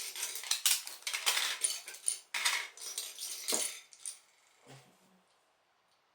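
Loose LEGO plastic pieces clattering and rattling as a hand rummages through them. The rattling dies away after about four seconds.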